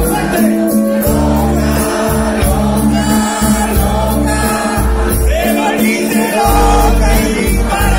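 Live Chilean cumbia band playing, with singing over heavy bass and percussion, heard through the concert PA from within the audience.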